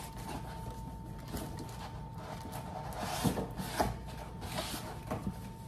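Knife blade scraping and slicing through packing tape and cardboard on a shipping box, with a few scratchy strokes about three to four seconds in.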